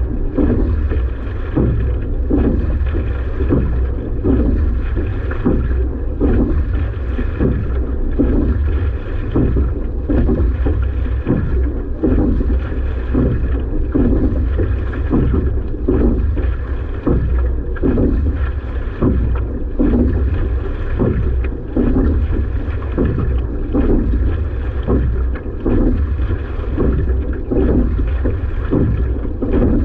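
Rowing at a steady rate: a repeated rushing surge comes with each stroke, every second or two, over a constant low rumble.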